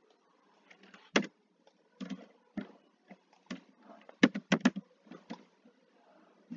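Computer keyboard keystrokes and mouse clicks: a scattering of single sharp clicks, with a quick run of three keystrokes a little past the middle.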